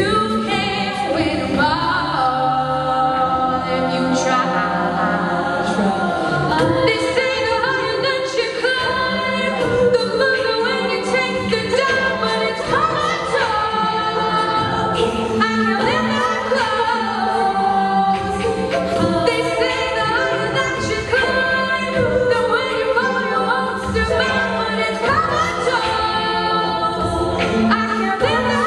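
All-female a cappella group singing in close harmony through microphones, with vocal percussion keeping a steady beat under the voices.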